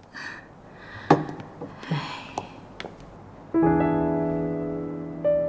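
Soft piano music: a chord struck about three and a half seconds in rings and slowly fades, with another note added near the end. Before it, a few light knocks and soft breathy noises.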